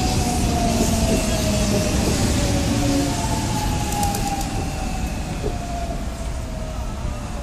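Korail Class 311000 electric multiple unit pulling into a station platform: a steady rumble of wheels on track under a motor whine that falls slowly in pitch as the train brakes, growing gradually quieter.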